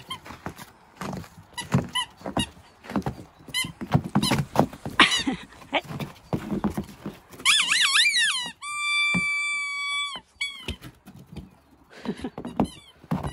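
Squeaky ball toy squeaking over and over as a Pomeranian bites on it. About seven and a half seconds in it gives a wavering squeal, then one long, steady squeak of over a second.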